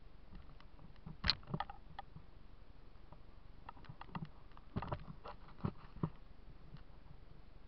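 A few light knocks and clicks over a steady low hiss. The sharpest comes about a second in, and a small cluster follows around five seconds in.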